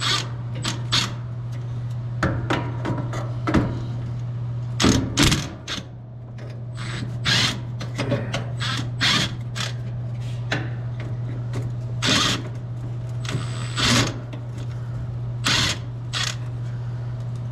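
Tools at work on a truck's exhaust clamp and elbow: a string of sharp metallic clanks and short bursts, one with a brief high whine, over a steady low hum.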